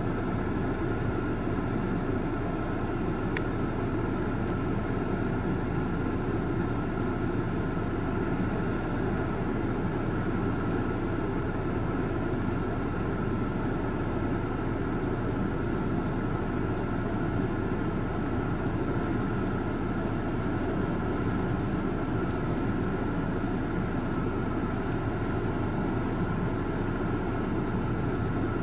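Steady mechanical drone with a faint steady whine, heard from inside a stationary car's cabin, unchanging throughout.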